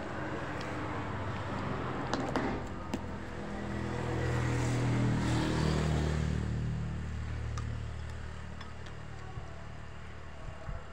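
A motor vehicle passes by on the road, its engine sound swelling about four seconds in and fading away. Earlier there are a few short sharp clicks.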